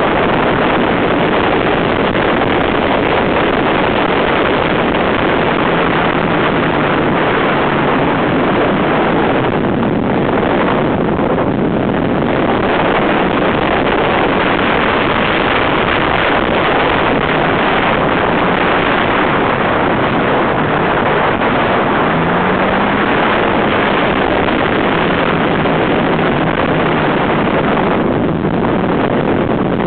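Mazda Miata's four-cylinder engine running hard on track, buried under heavy wind noise on the microphone. Its engine note shifts up and down with the throttle and climbs once about two-thirds of the way through.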